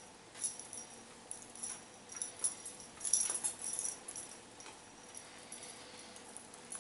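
Faint metallic jingling and clinking of bracelets and rings as the wearer moves, loudest about three to four seconds in.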